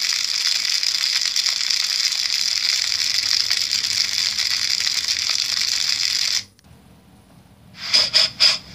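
Steady sizzling hiss of deep frying, a frying sound effect, which cuts off abruptly about six seconds in. A few brief sharp sounds follow near the end.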